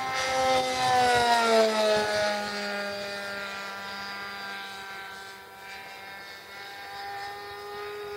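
Radio-controlled model airplane's motor and propeller droning as it flies past overhead, the pitch dropping as it goes by about a second in, loudest then, and holding lower and somewhat fainter afterwards.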